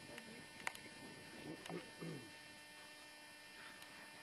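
Quiet, with a steady electrical hum, a single sharp click about two-thirds of a second in and a few faint low sounds near two seconds in.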